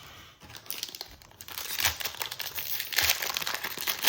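Crinkling and crackling of a foil trading-card pack wrapper being handled and torn open, a dense run of sharp crackles that starts about half a second in.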